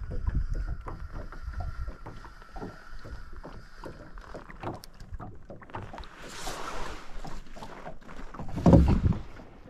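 Handling noise in a small rowboat while a hooked fish is brought in: light clicks and knocks of rod and gear against the hull, a brief rushing noise about six seconds in, and a heavy thump against the boat near the end. Wind rumbles on the microphone at the start.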